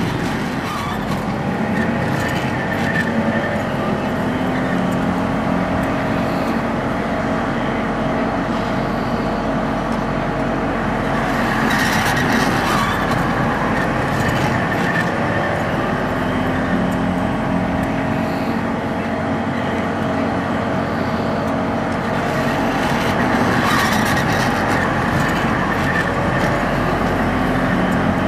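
Miniature model car running on a wet skid-pan track, its motor sound rising and falling in pitch again and again, louder around twelve and twenty-four seconds in.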